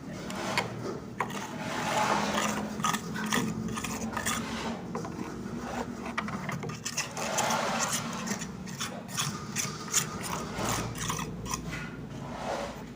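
Hands working craft materials: irregular rubbing and scraping with many small clicks and scratches, with no steady rhythm.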